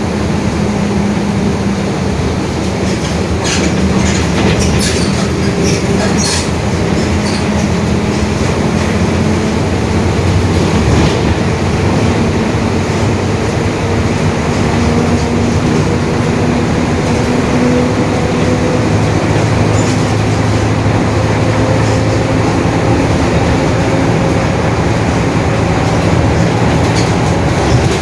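Mercedes-Benz OF-1721 BlueTec 5 city bus under way: a steady diesel and road drone with a droning differential whose pitch slowly rises over the second half as the bus gathers speed. A few short clicks or rattles about three to six seconds in.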